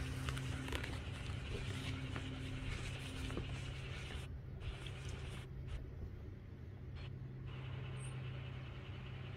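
A steady low mechanical hum at one constant pitch, under a faint outdoor background haze.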